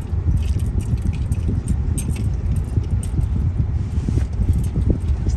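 Road noise inside a moving car's cabin: a steady low rumble from the tyres and engine, with frequent small rattles and clicks from the bumpy road.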